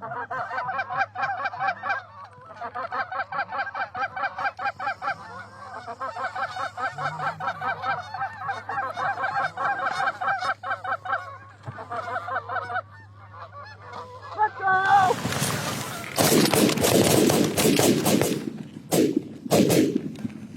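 Goose honks and clucks in a quick, steady run for about thirteen seconds, the sound of a goose call or geese working the spread. Then a loud rushing noise takes over, with a couple of sharp bangs near the end.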